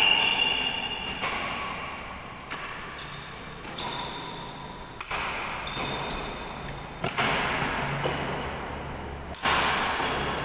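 Badminton rally: rackets striking the shuttlecock, a sharp crack every second or so, some hits followed by a brief ringing ping, echoing in a large hall.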